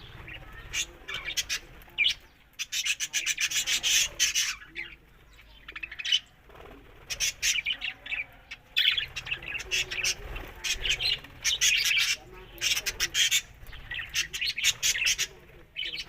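Budgerigar chattering: a fast, scratchy warble of clicks and chirps in bursts, broken by short pauses.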